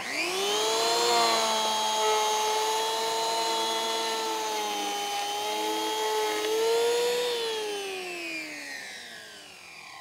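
Handheld electric power planer switched on, its motor whine rising quickly in pitch, then running steadily while it cuts down a rough-sawn walnut board. About seven seconds in it is switched off and winds down with a falling pitch.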